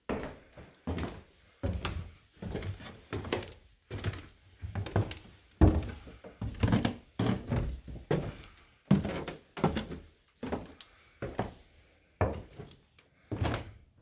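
Footsteps climbing a wooden staircase, about two steps a second, each a thud on the wooden treads, one heavier step about halfway through.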